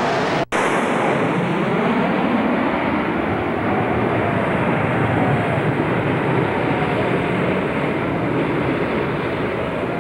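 A formation of four T-2C Buckeye twin-turbojet trainers flying low overhead: a loud, steady jet roar with a faint shifting whine in it. There is a momentary dropout about half a second in.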